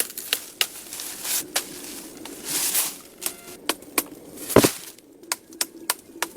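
Hand-tool work on wood: a run of irregular sharp knocks and taps, with short scraping noises between them and one heavier thud a little past the middle.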